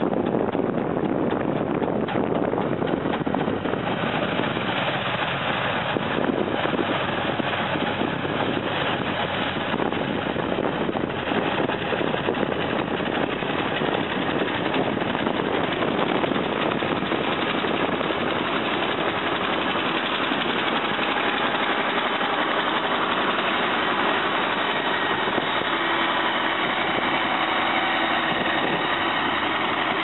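Truck-mounted rotary snow blowers running: the steady noise of the engine and spinning impellers as the blowers cut into snow and throw it.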